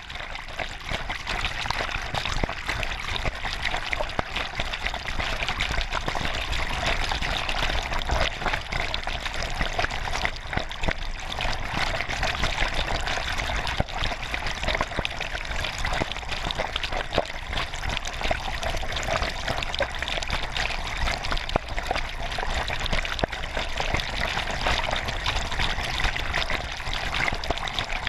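Fast-flowing floodwater rushing and splashing right over the microphone: a steady, dense splashing with many small spatters and no let-up.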